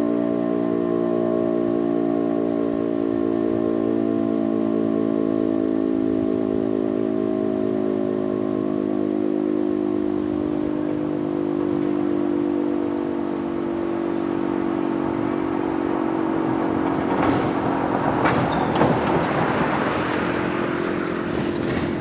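Federal Signal RSH-10 Thunderbeam outdoor warning siren sounding its full-alert steady tone, a chord of several held pitches. From about 17 to 21 seconds in, a passing vehicle adds a louder rush of noise over it, and the siren carries on beneath.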